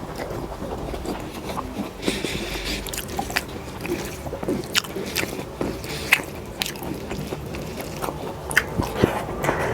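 A person chewing and biting food close to the microphone, with many short, wet mouth clicks and smacks at an uneven pace.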